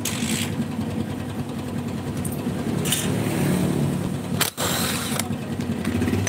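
Cordless drill motor running steadily under load on a motorcycle cylinder head. It stops for a moment about four and a half seconds in, then runs on.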